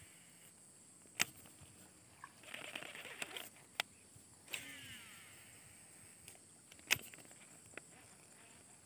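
Shimano SLX baitcasting reel during a cast: the spinning spool gives a falling whine about halfway through. Around it are a few sharp clicks and a short rattly stretch.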